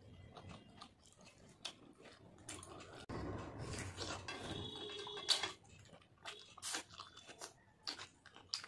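Close-up chewing and wet mouth clicks of someone eating fish curry and rice by hand. A louder stretch of mouth noise runs from about three seconds in to about five and a half.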